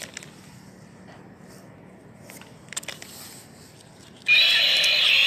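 Battery-powered toy winged dragon: a few faint clicks of handling, then about four seconds in its loud electronic roar sound effect starts abruptly from its small speaker.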